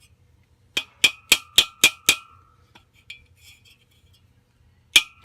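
Hammer strikes on metal: six quick ringing blows about four a second, then another quick run near the end. They come from knocking the bushing and bearing base off an A/C blower wheel.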